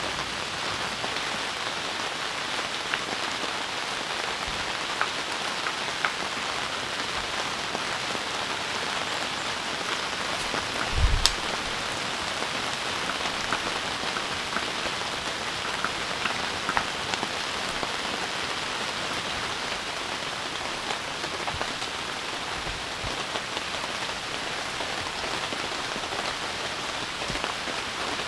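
Heavy rain falling steadily, with scattered sharper drop hits and one low thump about eleven seconds in.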